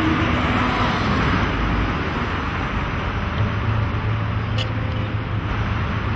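Steady city street ambience, a continuous wash of road traffic noise.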